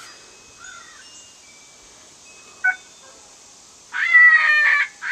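FoxPro Spitfire electronic game call playing a recorded animal call through its speaker. A loud, drawn-out call at a steady pitch starts about four seconds in; before it there are only a few faint chirps.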